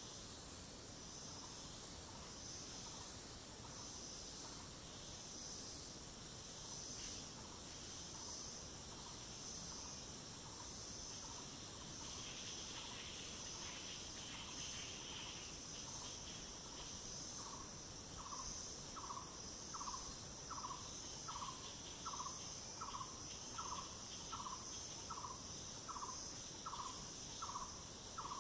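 Mountain forest insects keep up a steady, high-pitched, pulsing chorus. Over it a bird repeats a short call at an even pace of about one and a half a second, faint at first and becoming loud about two-thirds of the way in.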